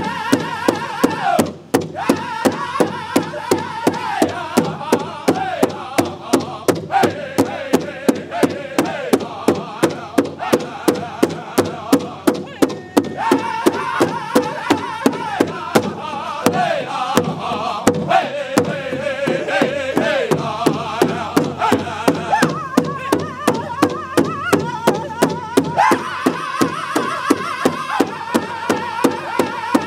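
Powwow drum group: many drummers striking one large shared drum in unison, a steady beat of about three strikes a second, under high, loud group singing whose phrases fall in pitch.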